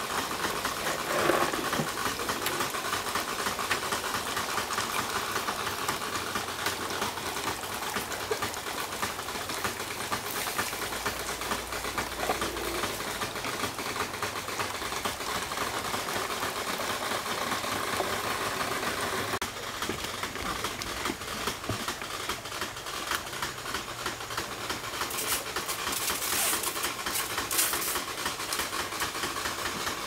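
Backpack sprayer's pump running steadily with a fast, even rattle, while disinfectant hisses out of the spray wand.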